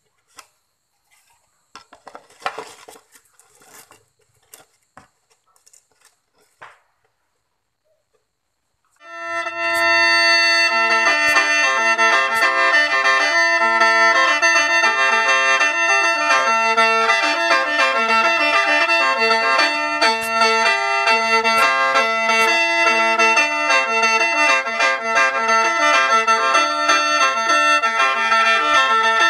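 Faint scattered knocks of plywood panels being handled and fitted together. About nine seconds in, loud background music starts: a melody moving beneath several steady held drone notes.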